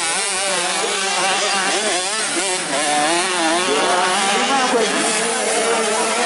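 Motocross dirt bike engines revving on the track, more than one at once, their pitch rising and falling with the throttle as they go through the turns.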